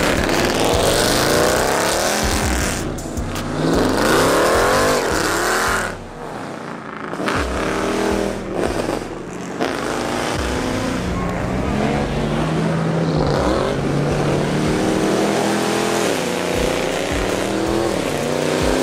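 Cars accelerating hard away one after another, their engines revving up in rising sweeps that drop back at each upshift.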